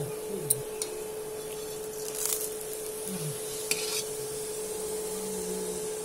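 Paratha frying in oil on a griddle with a faint steady sizzle. A metal spatula gives a few light clicks against the pan early on and short scrapes about two and four seconds in.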